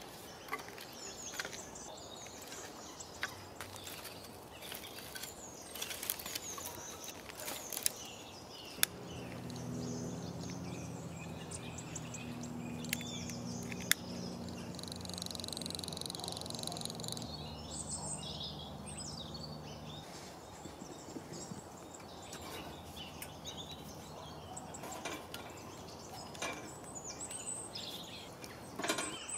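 Dry twigs and kindling clicking and crackling as they are handled and piled in a fire pit, with birds calling now and then. A steady low hum sits underneath for several seconds in the middle.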